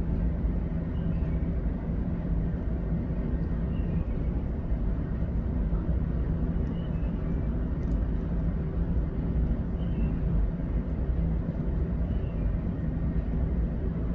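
A steady low mechanical hum, like a motor or fan running, with faint short high chirps about every three seconds.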